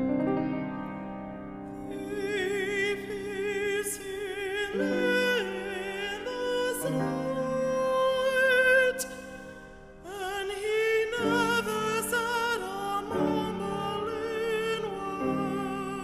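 Solo voice singing a slow song with vibrato over piano accompaniment; the piano plays alone for the first couple of seconds before the voice comes in.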